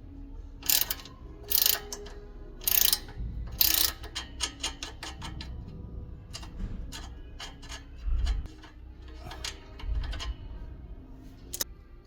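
Hand-tool work on metal car parts: four louder strokes in the first four seconds, then a run of smaller clicks and knocks.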